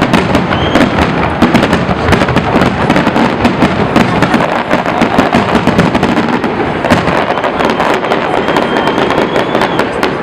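Fireworks display going off: a loud, dense, rapid barrage of overlapping bangs and crackles.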